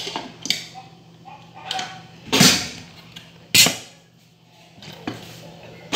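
Pressure cooker lid being fitted and twisted shut on the pot: metal clicks and scrapes, with two louder scraping clunks about two and a half and three and a half seconds in.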